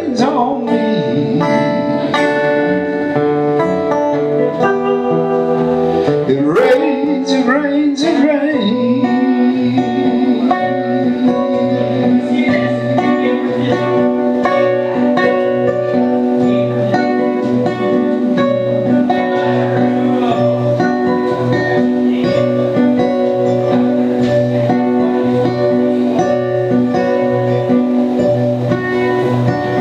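Two acoustic guitars playing an instrumental passage together, with a few sliding, bent notes about six to eight seconds in.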